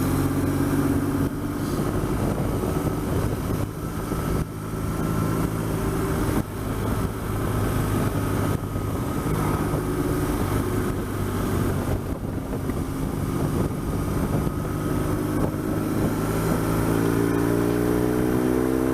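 BMW R1200GS boxer-twin engine running under way, its note shifting with the throttle and rising steadily near the end as the bike accelerates, over steady wind and road rush.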